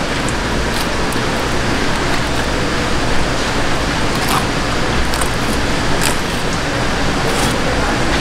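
Steady loud background noise of a fish market hall, with a few faint short scrapes of a knife filleting a flatfish on a plastic cutting board.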